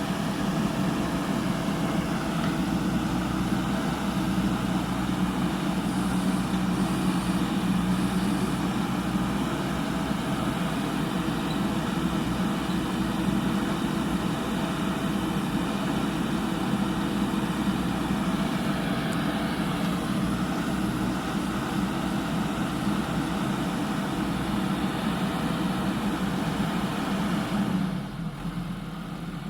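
JCB 3DX backhoe loader's diesel engine running steadily while the machine works, then settling to a quieter level near the end.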